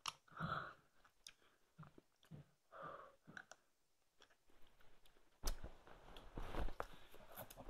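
A person sucking and chewing a very sour hard caramel candy: wet chewing and mouth clicks, with two short murmurs from the voice about half a second and three seconds in. Denser crackling mouth noise over the last two seconds.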